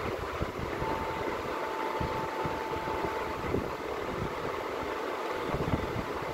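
Steady rushing background noise, with a faint steady tone held from about a second in until near the end.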